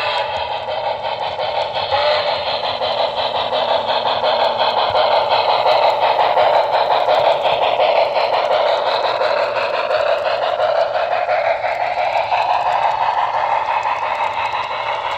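HO scale model passenger train rolling past close by: the Walthers passenger cars' wheels run on the track with a steady rushing rattle and a dense run of small clicks, a little louder in the middle.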